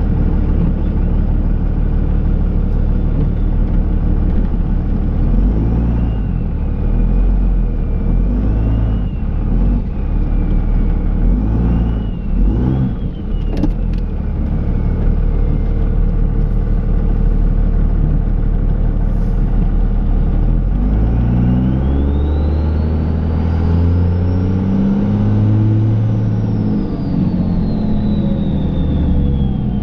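Dodge Ram pickup's Cummins turbo-diesel engine running under load and revving up and down, with a high whine that rises and falls with engine speed. The biggest climb and drop in revs comes in the last third.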